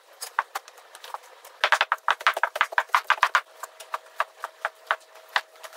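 Wet clear paint-protection film being pressed and squeegeed onto a car's side sill by gloved hands: a run of crisp clicks and crackles, thickest about two to three seconds in, then sparser.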